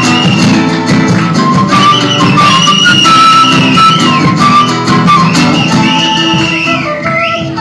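Live folk ensemble playing an instrumental passage: a bending, gliding wind melody over plucked and strummed strings.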